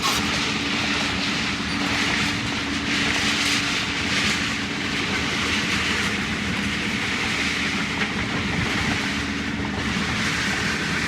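Engine of a small construction machine running steadily under work, with a constant hum and a rattle of working noise over it.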